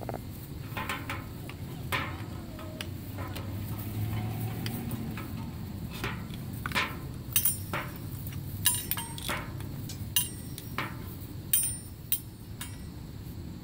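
Hanging metal kitchen utensils, foil pans and tin cans clinking and clanging as puppies bump and tug at them. The clinks are irregular and sharp, with a brief ring, sparse at first and coming thick and fast in the second half.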